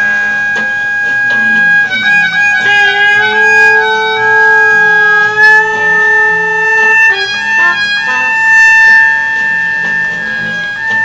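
Electronic tones from a home-built oscillator circuit played through a multi-layer piezo speaker taped to a Paulownia wood board: several steady tones held together like a chord of a sho or harmonica. A lower tone joins about a quarter of the way in and drops out a little past the middle, and the pitches step to new notes a few times. The taped-on piezo element buzzes against the wood.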